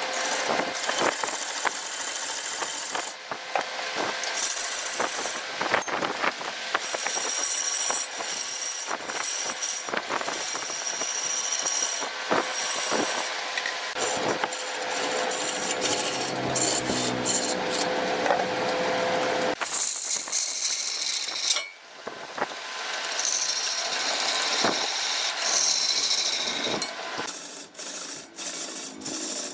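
Wood being cut and scraped with hand tools, likely a turning tool on a wood lathe, a continuous rasping hiss with scattered clicks. The sound changes abruptly several times, as between separate takes.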